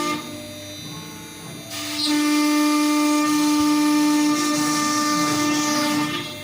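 CNC router spindle running with a steady high whine while cutting wood. The sound is quieter for the first second and a half, loud with cutting hiss for about four seconds, and quietens again near the end.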